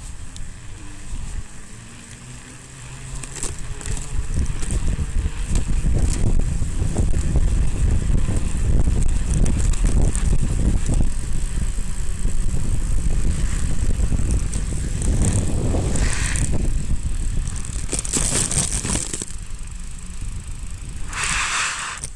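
Mountain bike ridden over a snowy trail, heard from a camera mounted on the bike: a steady low rumble of riding with clicks and rattles, growing louder about four seconds in. Short hissing bursts break in a few times near the end.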